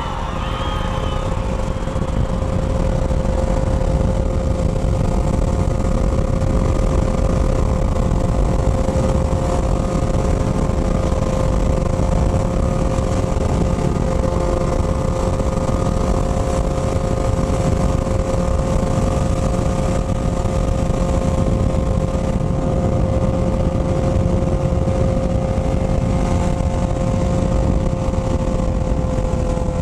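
Motorcycle engine running at a steady speed while riding, its pitch held nearly constant throughout, over a steady low rumble.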